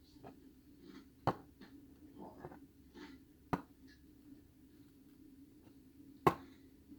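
Light handling noise: faint rustling and three sharp taps, about a second in, midway, and near the end.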